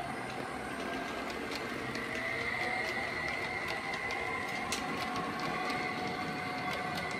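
Model London Underground S Stock train running past at close range: a steady whine, one tone rising slightly about one to two seconds in, with scattered light clicks throughout.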